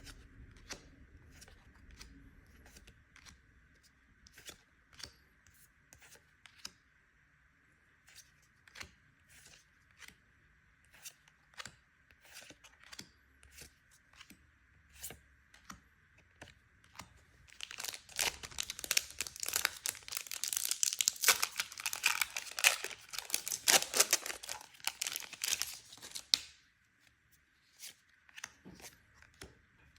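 Magic: The Gathering cards being handled with scattered light clicks and taps, then a foil booster pack wrapper torn open and crinkled for about nine seconds past the middle, the loudest part; a few card clicks follow near the end.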